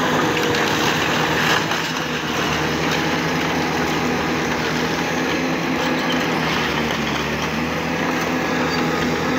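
Caterpillar 953 track loader's diesel engine running steadily. A single knock sounds about one and a half seconds in.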